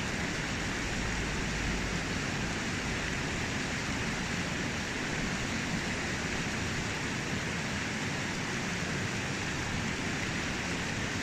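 River water rushing through a shallow, stony riffle: a steady, even rush with no breaks.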